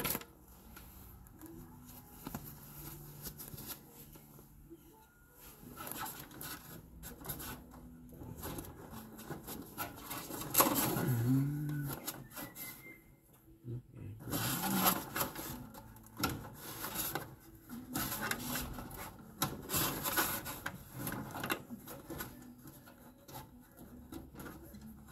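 Irregular handling noise of gloved hands working inside the open casing of a heat pump water heater: rubbing, scraping and scattered clicks against the sheet-metal housing and parts, with one louder burst a little over ten seconds in.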